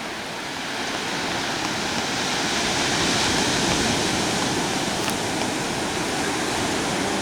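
Sea waves breaking and washing on a sandy beach, a steady rush that swells from about a second in to its loudest around three seconds.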